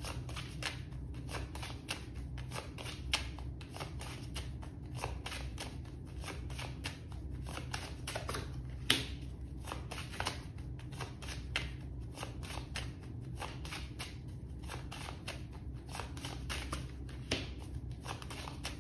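Hands shuffling a deck of cards, a steady rapid patter of cards flicking against each other, with a few louder snaps.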